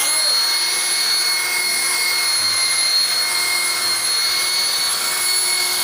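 Electric rotary car polisher running at a steady speed, its motor giving an even high-pitched whine as the pad is worked over a car's painted body panel.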